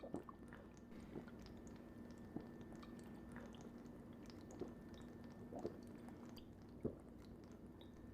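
Quiet room tone: a steady low hum with a faint high tone, and a scatter of small, soft clicks and taps, a few slightly louder near the middle and about seven seconds in.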